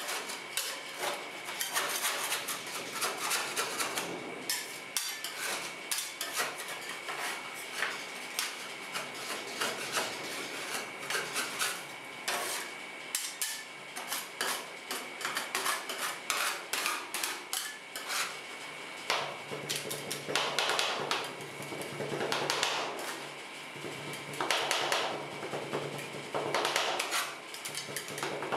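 Two steel spatulas chopping and scraping ice cream base on a frozen stainless-steel rolled ice cream plate: a fast, dense clatter of metal taps and scrapes, with a faint steady high tone underneath.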